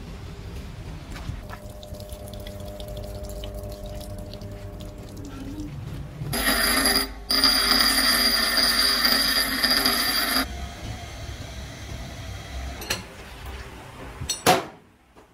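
Bench grinder grinding a small steel piece held against its wheel: a loud, steady grinding with a high ring for about four seconds in the middle, briefly broken once. Near the end, one sharp metallic clank as a wrench works the lathe's tool post.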